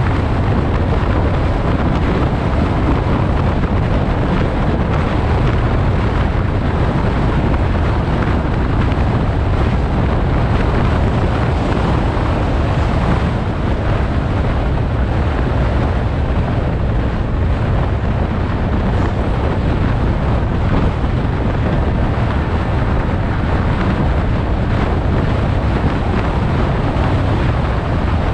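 Steady rush of wind over the microphone of an e-mountain bike speeding down an asphalt road at over 70 km/h, a loud, even roar heaviest in the low end, with tyre noise on the asphalt beneath it.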